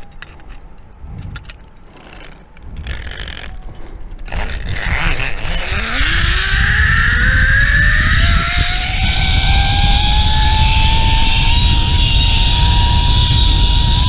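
Zipline trolley pulleys running along a steel cable. After a few clicks and knocks of the gear, a whine rises in pitch as the rider picks up speed and then holds steady, over rushing wind noise.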